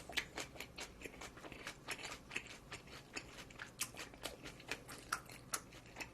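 Close-up mouth sounds of a person chewing food: a quiet run of small, crisp, wet clicks, several a second.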